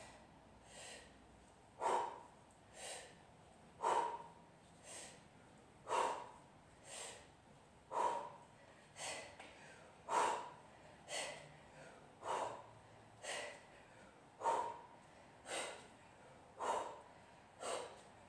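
A woman's sharp, forceful breaths in a steady rhythm, a louder one about every two seconds with a softer one between: power breathing timed to each rep of one-arm kettlebell snatches with a 16 kg bell.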